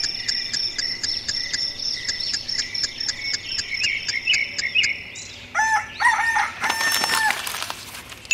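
High, rhythmic chirping, about four chirps a second, until about five seconds in, then a rooster crowing.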